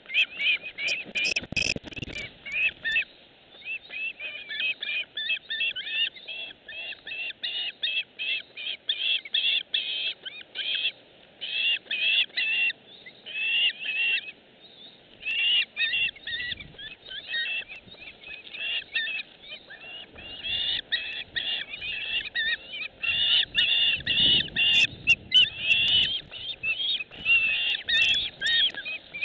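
A dense chorus of short, repeated animal calls, several a second, with a few short pauses.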